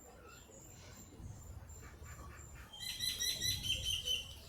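A small bird chirping. It gives a few faint calls, then about three seconds in a quick run of short, high chirps.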